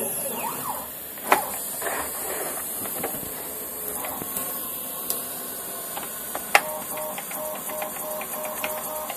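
CNC mill's stepper motors giving a steady high hiss, with a few sharp clicks. From about two-thirds through, the Z-axis stepper jogs in short, evenly spaced pulses, about three a second, as the bit is lowered to touch off the top of the workpiece.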